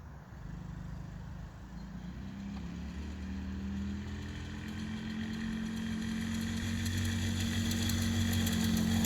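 Small 110cc four-stroke mini ATV engine running at a steady pitch, growing steadily louder throughout.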